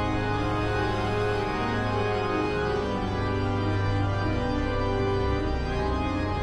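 Background music on an organ-like keyboard, with held chords sounding steadily throughout.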